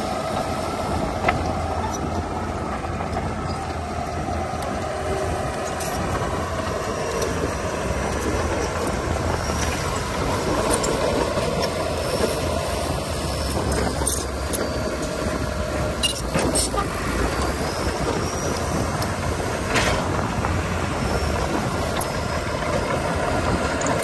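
Heavy diesel earthmoving machinery running steadily, with a few sharp knocks in the second half.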